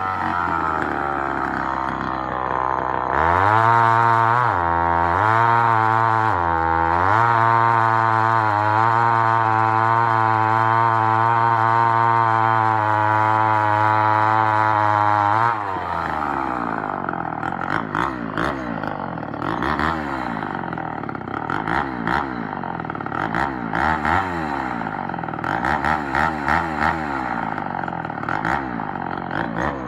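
Homelite Super XL Auto two-stroke chainsaw running. It revs up and down a few times and holds a steady high speed, then drops about halfway through and runs unevenly, its speed wavering up and down for the rest.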